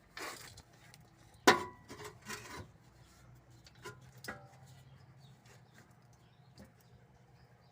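A few scattered knocks and clinks, the loudest about a second and a half in, from metal exhaust parts being handled, over a faint low hum.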